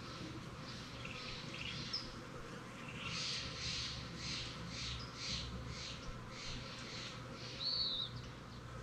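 Wild birds calling: a run of harsh, scolding calls repeated about two to three times a second for several seconds, with a few short high chirps before it and a loud down-slurred whistle near the end.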